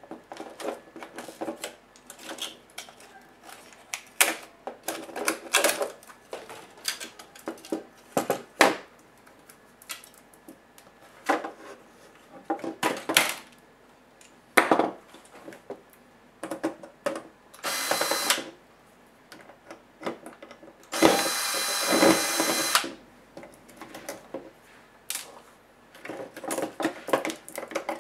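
Clicks, taps and knocks of plastic laptop case parts and the circuit board being handled and pried apart. Twice near the middle a short, steady burst of noise cuts in, the second one longer and the loudest sound.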